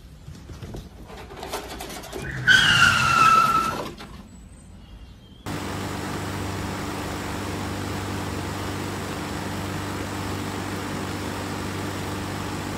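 A cat's loud, drawn-out yowl, falling slightly in pitch, about two and a half seconds in. After a cut, an outdoor air-conditioning condenser unit runs with a steady hum and fan rush.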